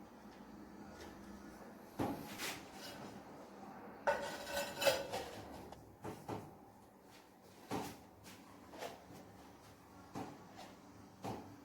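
Hard objects being handled: scattered single knocks, and a short run of ringing metallic clinks about four seconds in.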